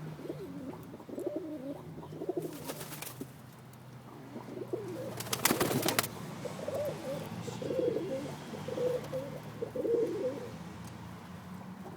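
Roller pigeons cooing repeatedly, with two short noisy rushes about three and six seconds in, over a steady low hum.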